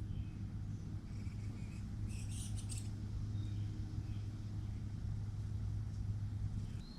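Backyard ambience: a steady low hum that stops just before the end, with a short cluster of sharp high chirps or rustles about two seconds in and a few faint bird chirps.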